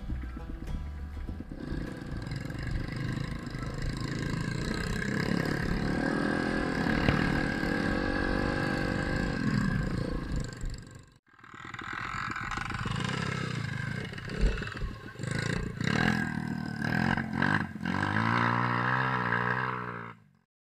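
Dirt bike engines revving up and down as they ride a rough trail, their pitch rising and falling. The sound cuts out for a moment about halfway, and a sharp knock stands out a few seconds later.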